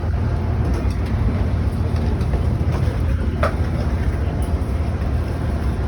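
Steady low rumble of an Amtrak train standing at the platform during boarding, with one short higher-pitched sound about halfway through.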